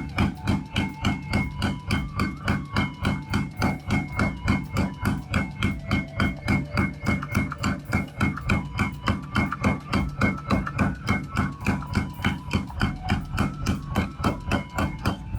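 Rapid, evenly spaced hammer blows on steel being forged into a kitchen knife blade, about four or five strikes a second, keeping up without a break.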